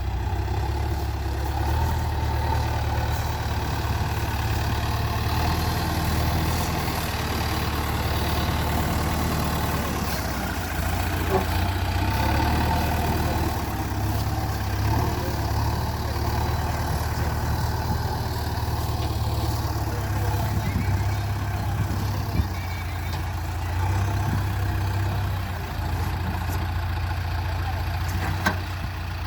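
JCB 3DX backhoe loader's diesel engine running steadily. Its low note shifts up and down in strength now and then as the machine works.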